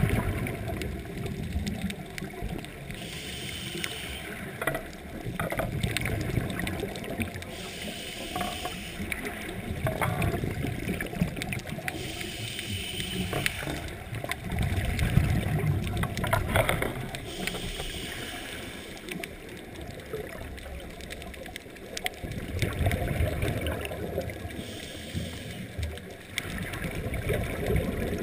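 Scuba diver breathing through a regulator underwater: a hiss on each inhale and a low rumble of exhaust bubbles on each exhale, repeating every few seconds.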